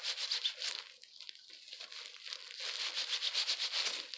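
Disposable plastic gloves crinkling and rustling in quick, rhythmic strokes as hands work hair dye through wet hair. The strokes ease off briefly about a second in, then pick up again.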